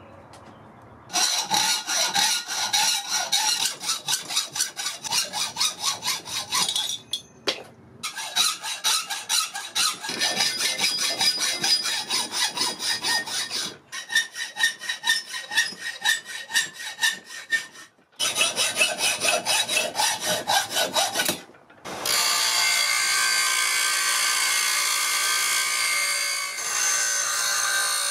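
Hacksaw cutting a mild steel bar clamped in a vise, in quick back-and-forth strokes, heard in several separate stretches. Near the end, a 6-inch Central Machinery bench grinder grinding the steel with a steady grinding sound.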